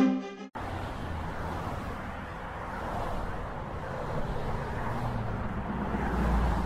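Motorbike engine running steadily as it rides along the road, a low hum under road noise that swells a little near the end.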